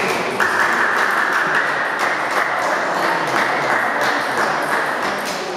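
Table tennis balls clicking off bats and tables in quick, irregular succession, over a steady rushing noise that sets in about half a second in.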